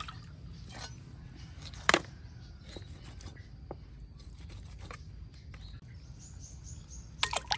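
Garden ambience with a steady low rumble, a single sharp click about two seconds in and a quick cluster of clicks near the end. A bird chirps faintly just before that cluster.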